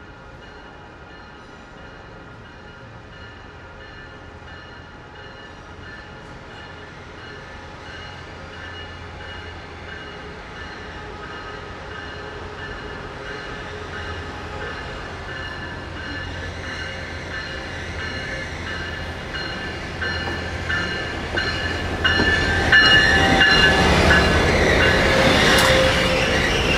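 Diesel-hauled Amtrak Pacific Surfliner passenger train approaching and passing, growing steadily louder to its loudest about 23 seconds in. Near the end its wheels click rhythmically over the rail joints.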